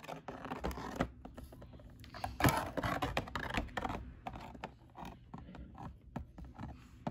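Plastic Schleich toy horse figures tapping and clicking irregularly on a gritty toy arena floor as they are walked by hand, with a louder stretch of handling noise about two and a half seconds in.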